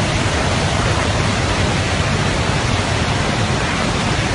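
Loud, steady rush of fast-flowing water: a continuous noise with no breaks.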